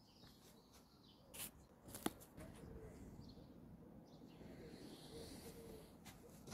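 Near silence: faint bird chirps in the background, with a couple of light clicks about one and a half and two seconds in.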